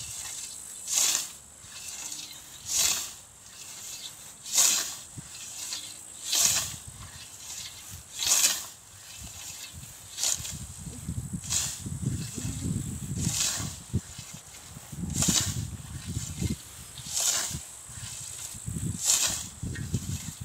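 Hand scythe swishing through clover and grass, about one cutting stroke every two seconds.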